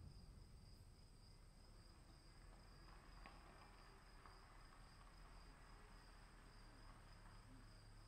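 Faint, steady high-pitched insect trilling over a soft low rumble of storm ambience.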